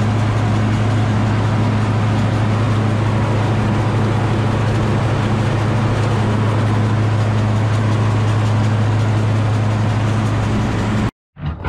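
Bizon Rekord combine harvester running steadily at high revs, diesel engine and threshing machinery turning together, to blow the harvest residue out of the machine. The steady hum cuts off suddenly near the end.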